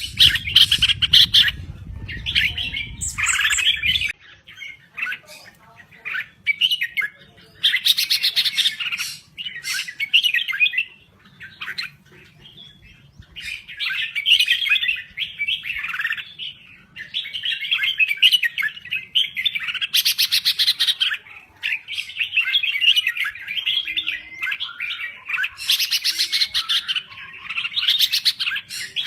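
Red-whiskered bulbul singing in bursts of quick, bright chirping phrases, with short pauses between them. A low rumble runs under the first four seconds and stops suddenly.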